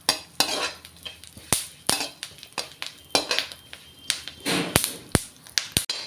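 Spatula stirring melon seeds around a hot kadhai after the gas is off, the seeds roasting in the pan's leftover heat. Irregular scrapes with sharp clicks and clinks, a few louder ones near the end.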